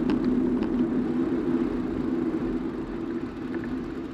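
Steady hum of a bicycle in motion, tyres rolling and air rushing past a handlebar-mounted camera's microphone, easing off and growing quieter near the end as the bike slows.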